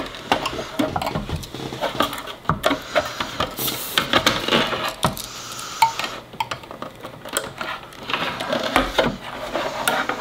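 Plastic case of a Verizon 4G LTE home internet gateway being worked off its inner frame: repeated plastic clicks, knocks and scraping, with a pocket-knife blade scraping between the case and the frame to free tape that keeps catching on the inner button.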